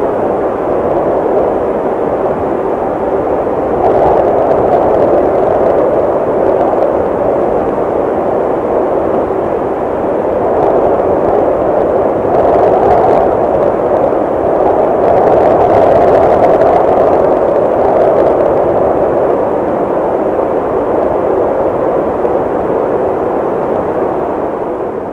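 Steady rushing noise of strong wind on the microphone, swelling and easing a little from moment to moment, fading out at the very end.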